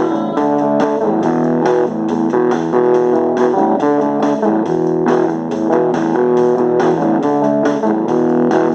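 Instrumental break of a rock song: guitars playing a melodic line over bass guitar and a steady beat, with no vocals.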